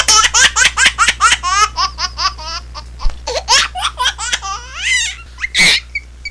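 Baby laughing hard in rapid high-pitched bursts, a long run of giggles, a short pause, then more laughs ending in one loud squeal. A steady low hum runs underneath.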